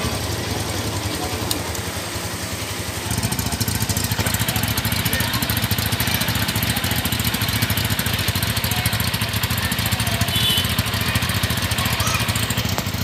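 Two Honda Tiger Revo 200cc single-cylinder four-stroke motorcycles on their original standard exhausts, idling together on choke while still cold. The two engines' beats overlap into a rhythmic, drum-like "jedek jedek" pattern, which gets louder about three seconds in.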